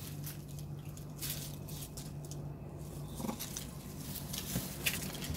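Scattered rustles and light clicks from macaques shifting about on dry leaves, over a steady low hum.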